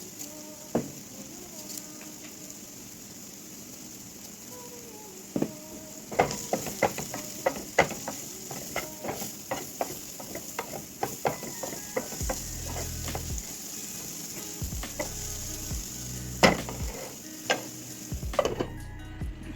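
Rice and egg stir-fry sizzling in a hot pan. From about six seconds in, a spatula stirs and scrapes it, making frequent sharp clicks against the pan.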